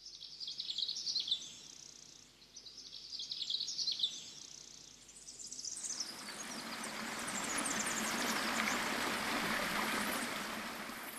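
Birds chirping in quick high twitters, and from about six seconds in a steady rushing ambient noise swells up beneath them.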